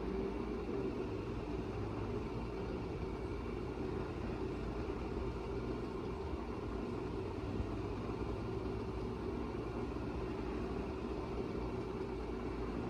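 Electric tubular motors of motorized retractable patio screens humming steadily as the screens roll down.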